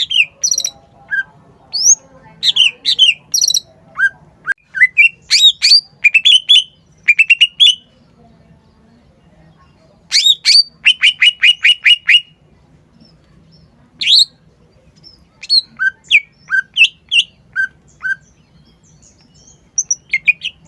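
Cucak ijo (green leafbird) singing a varied, loud song of sharp whistled and chipping notes in quick clusters separated by short pauses, with a fast run of repeated downward-sweeping notes around the middle.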